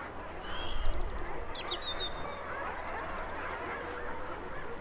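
Crowded guillemot colony on sea cliffs calling: a dense, continuous din of many overlapping growling calls, with a few higher chirps and trills over the top. A low thump about a second in.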